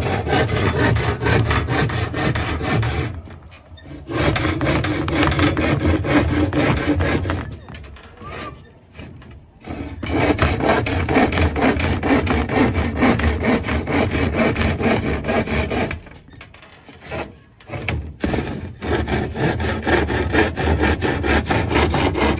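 Hand saw cutting through a plywood board with rapid back-and-forth strokes, in four runs broken by short pauses.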